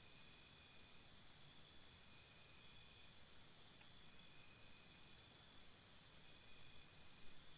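Faint insects chirping, crickets or similar, in quick regular pulses of several chirps a second. The loudest chirping drops away for a few seconds in the middle and comes back, with fainter, higher chirps over it.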